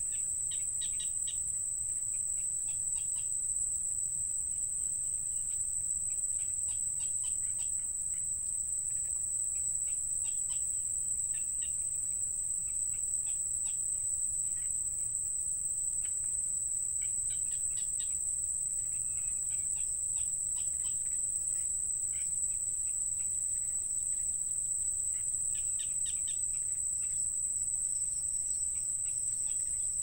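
A steady, high-pitched insect trill held on one pitch, with short, high chirps scattered over it.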